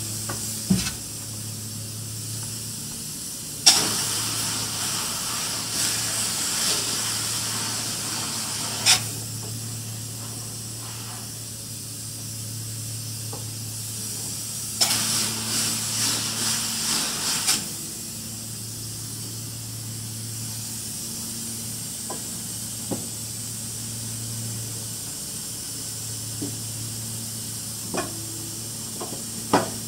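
Spray foam insulation gun spraying polyurethane foam in two long hissing bursts, one from about 4 to 9 seconds in and another from about 15 to 18 seconds in. A steady low hum runs underneath, with a few sharp clicks.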